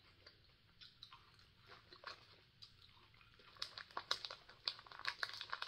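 Faint close-up chewing of a soft, sugar-coated sweet potato amanatto: soft mouth clicks and smacks, growing denser and sharper over the last two seconds.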